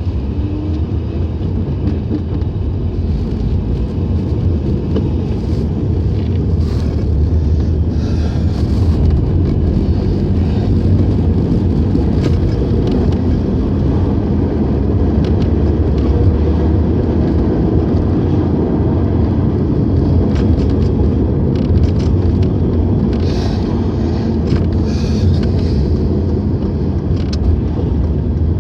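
Mercedes-Benz 190E on the move, heard from inside the cabin: a steady low rumble of engine and road noise, with scattered short clicks and rattles.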